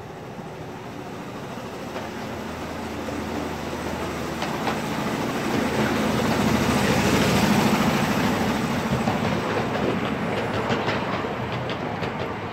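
A 7¼-inch gauge miniature train running along the track with a steady rumble of wheels on rails. The rumble grows louder to a peak about two-thirds of the way through, then eases, with sharp clicks of wheels over rail joints near the end.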